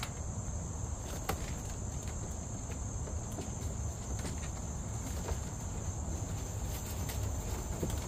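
A steady, high-pitched chorus of insects, with a faint knock about a second in and another a little past the middle.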